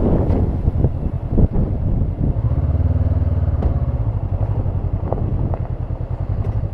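Honda CB500X's parallel-twin engine running at low revs as the bike rolls slowly, with a steady low note from about two and a half seconds in. Scattered short clicks and knocks come through over the engine.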